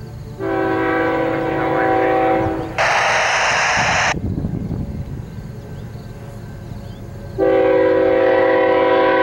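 Diesel freight locomotive's multi-chime air horn sounding two long blasts for a level crossing, the first starting about half a second in and the second near the end, over the low rumble of the approaching locomotive. A loud hiss cuts in between the blasts about three seconds in and lasts about a second.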